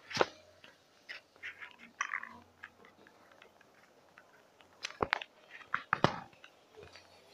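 Handling noise from a phone being moved about: irregular clicks, knocks and rubbing on its microphone, with sharp knocks just after the start and about five and six seconds in.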